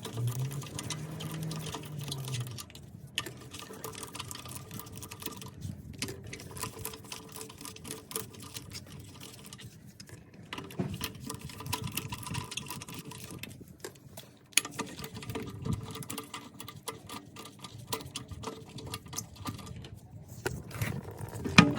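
Rapid ratchet clicking and metal tools clinking while a car's wheel bolts are undone and the wheel taken off, with a low hum that rises and falls in the first couple of seconds.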